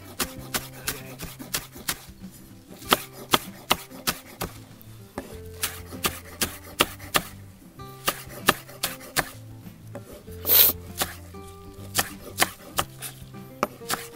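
Kitchen knife chopping vegetables on a cutting board in quick, irregular strikes, with one longer, louder noise about ten and a half seconds in. Soft background music plays underneath.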